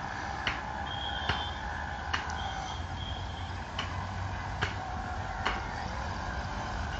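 Low steady rumble from a distant approaching electric local train, with sharp ticks roughly every second and two short high chirps about a second and two seconds in.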